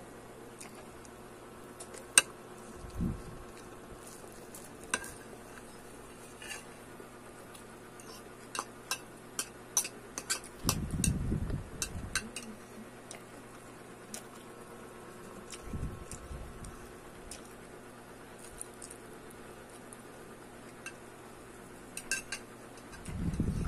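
Metal fork clicking and scraping against a ceramic bowl and plate in scattered clinks, with a quick run of clinks around eight to ten seconds in. Short muffled bursts of chewing on lettuce come in between.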